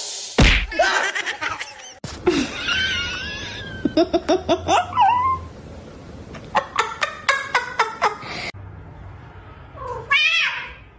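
A mix of pet sounds and human laughter: wavering cries, bursts of rhythmic laughing, and about ten seconds in a short falling cat meow.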